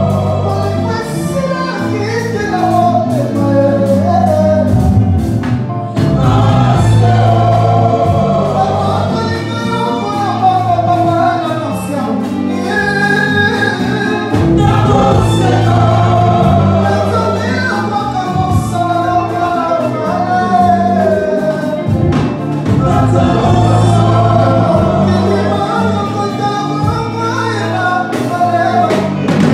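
Live band playing, with several singers singing together in harmony over electric guitars, bass and drum kit.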